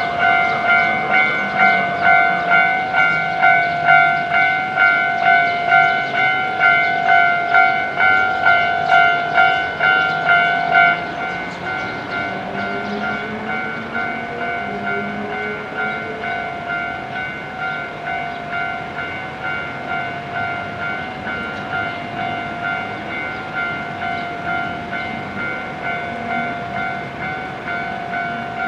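Japanese level-crossing electronic warning bell ringing in steady repeated chimes; about eleven seconds in it drops to a quieter level. A passing train's wheel and motor noise, with a faint rising whine, runs underneath.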